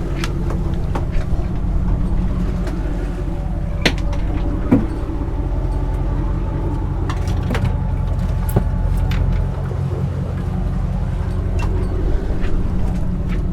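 Boat motor running steadily with a low hum, with scattered knocks and clicks over it.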